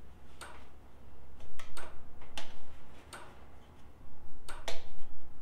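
Irregular sharp metal clicks and taps, about seven in all, from a clamp-on heat lamp's clamp and bolt being handled as a replacement bolt is fitted.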